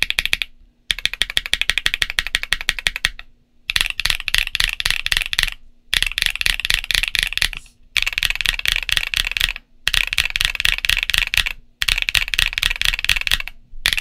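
Fast typing on a stock Portico68 BL mechanical keyboard fitted with MMD Princess Linear 53g switches and Cherry-profile ABS keycaps. The keystrokes come in runs of about two seconds, with brief pauses between them.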